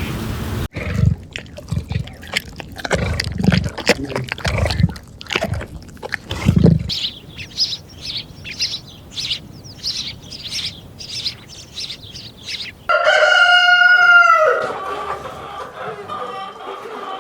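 Chickens clucking and calling in short high notes over a run of sharp knocks. About thirteen seconds in, a rooster crows once, a held call of under two seconds and the loudest sound here. Softer clucking follows.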